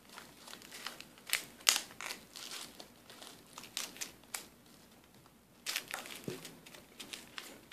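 Pop Rocks candy packets crinkling in the hand as they are snipped and worked open with scissors, in scattered sharp crackles. The loudest crackles come about a second and a half in, with a quieter spell for about a second past the middle.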